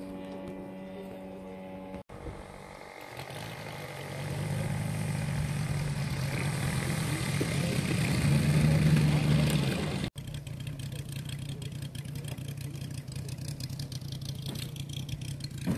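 Piston engine of a large model tow plane running with its propeller. It goes from a steady idle, builds to its loudest about nine seconds in, then idles again with a regular firing beat after a sudden cut at about ten seconds.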